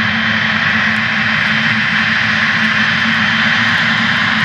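Jet engines of a twin-engine widebody freighter running steadily at low power as it taxis: an even jet whine over a low rumble.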